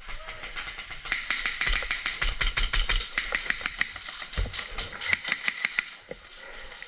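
Airsoft guns firing in rapid bursts: a fast run of sharp snapping shots from about a second in to about six seconds, with a steady mechanical whir under them.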